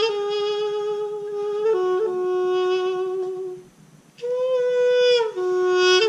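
A solo folk wind pipe plays a slow melody of long held notes with bright overtones. The notes step down in pitch, there is a short breath break about four seconds in, and then a higher note slides down.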